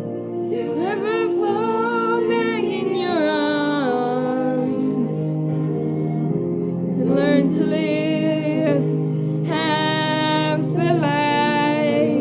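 Female voice singing sustained, sliding notes with vibrato over a steady backing accompaniment of held chords. The voice drops out briefly around the middle and comes back in for the last few seconds.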